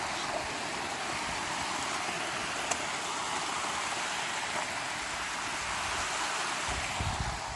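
Creek water rushing over rocks, a steady even hiss, with a few low thumps near the end.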